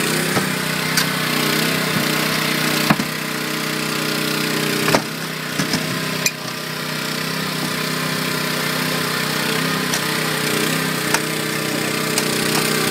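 Small petrol engine of a hydraulic rescue tool power unit running steadily while a hydraulic spreader forces a minivan door, with several sharp cracks and snaps as the door's metal and trim give way, the loudest about three and five seconds in.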